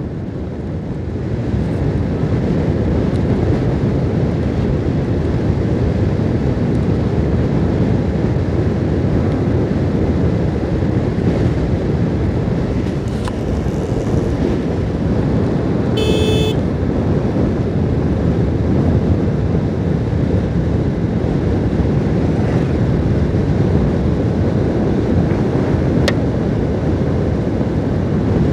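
Steady wind rush on a helmet-mounted microphone while riding a motorcycle at road speed, with engine and road noise underneath. A brief high-pitched sound comes about halfway through.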